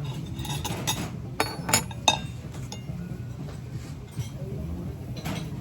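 A few sharp clinks and taps, about four in quick succession a second and a half in and one more near the end, like tableware or glass being knocked, over a steady low background rumble.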